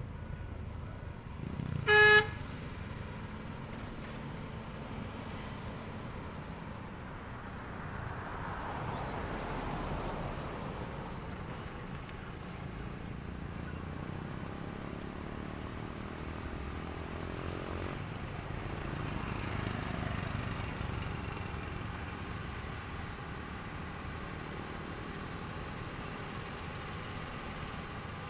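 One short vehicle horn toot about two seconds in, the loudest sound. Around it is the steady noise of vehicles on a rough road, which swells and fades twice as traffic passes.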